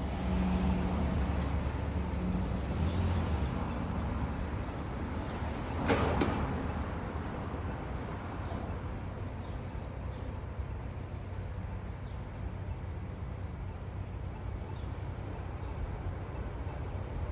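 Steady low rumble of city traffic, with a louder swell about six seconds in.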